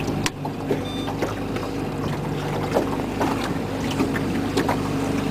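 Pull-start outboard motor running steadily at trolling speed, with frequent short knocks over it and a brief high beep about a second in.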